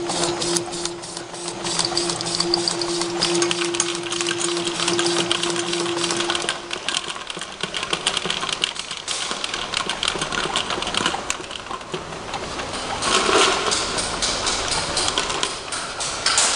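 Automatic sticker labelling machine running: dense, rapid mechanical clicking and rattling. A steady motor hum stops about seven seconds in.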